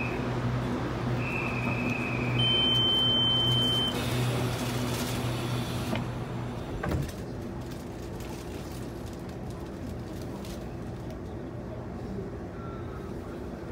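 Inside an electric commuter train carriage: two short high beeps, then a steady high warning tone for about a second and a half, the door-closing alarm. A thump follows about seven seconds in as the sliding doors shut, and the train's electric hum then runs on steadily.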